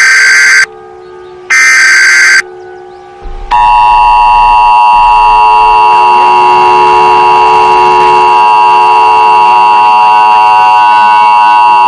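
Emergency Alert System tones announcing a tornado warning: two short data bursts of the SAME header, each about a second long with a gap between them, then after a brief pause the steady two-tone EAS attention signal, held for about eight seconds.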